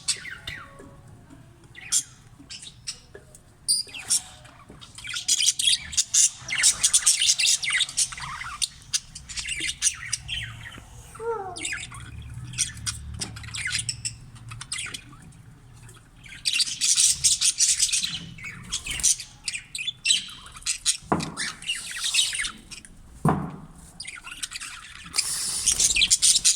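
Caged budgerigars chattering and squawking in dense high-pitched bursts that come and go several times, with softer chirps in between and a few sharp clicks.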